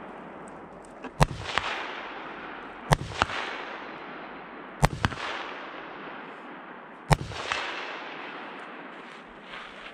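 Four rifle shots fired one at a time, spaced about two seconds apart. Each is followed by a long rolling echo off the hillside.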